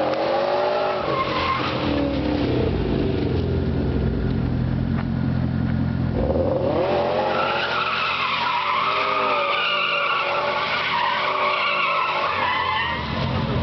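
Subaru flat-four engine revving hard as the car spins donuts, tyres squealing continuously with a wavering pitch.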